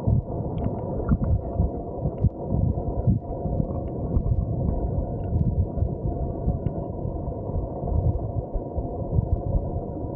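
Krka waterfalls running in a heavy, steady low rush of falling water, swollen by heavy rain.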